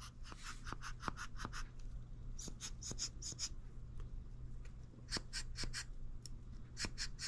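Faint, quick strokes of the brass steam-engine piston, fitted with silicone rubber O-ring rings, worked by hand in its cylinder, in four short runs with pauses between. The rings rubbing and pushing air on each stroke are the sign that they seal.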